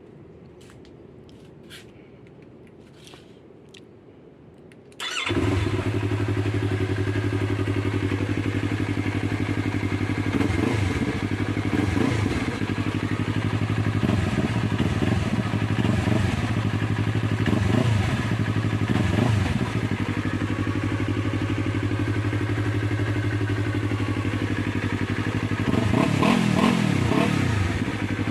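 Yamaha R3's 321 cc parallel-twin engine, fitted with a replica Akrapovic slip-on exhaust, starting about five seconds in and then idling. The throttle is blipped several times, with short revs mostly in the middle and near the end.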